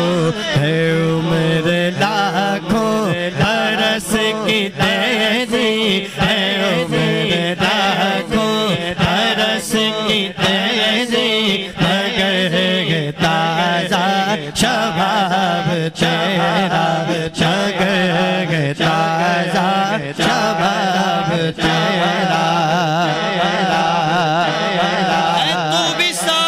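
Male naat reciter singing a devotional Urdu naat into a microphone in a long, ornamented melodic line over a steady low drone.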